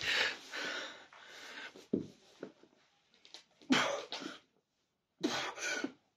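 A man's forceful, breathy exhalations and grunts of effort during weighted push-ups, coming as separate bursts every second and a half or so, with a short thump about two seconds in.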